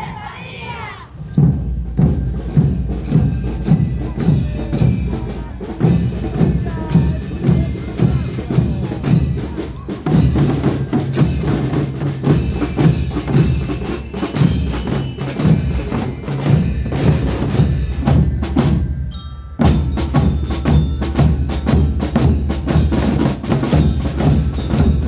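School marching band playing a march: bass and snare drums beat a steady rhythm, with high ringing melody notes above them. The playing starts about a second in, breaks off briefly about two-thirds of the way through, then starts again.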